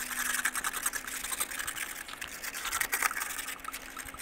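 Stiff bristles of a snow brush scrubbing frost and ice off a car headlight in quick, continuous back-and-forth strokes, with a faint steady hum underneath.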